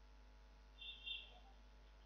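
Near silence, with one faint, high chirp in two quick parts about a second in.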